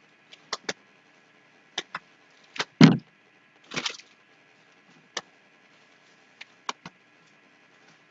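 Potatoes being dug out of a grocery delivery box: scattered knocks and clicks as they bump against each other and the box, with a brief rustle, the loudest a dull thump about three seconds in.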